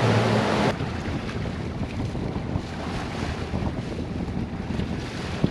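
Boat's outboard motor running fast with rushing wake water and wind on the microphone, throttled back sharply less than a second in. After that a lower, even wash of water and wind as the boat slows, with one short knock near the end.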